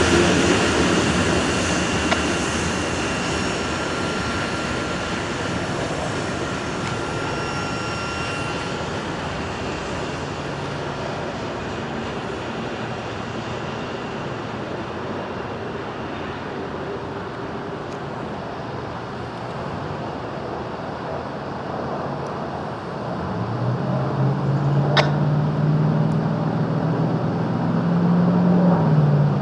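Freight train's covered hopper cars rolling away on jointed track, the rumble slowly fading, with a faint high wheel squeal during the first several seconds as the cars take a curve. Near the end, a low engine drone builds, rising slightly in pitch and loudness.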